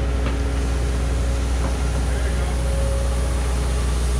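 Caterpillar excavator's diesel engine running steadily as the machine works close by.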